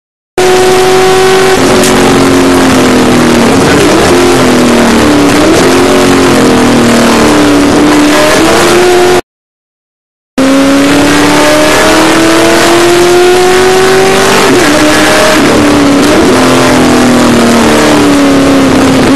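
Race car engine heard from inside the cockpit at full racing pace: the note climbs steadily under acceleration, then falls and wavers as the driver lifts and shifts down into corners. The sound cuts out completely near the start and again about halfway through, for about a second each time.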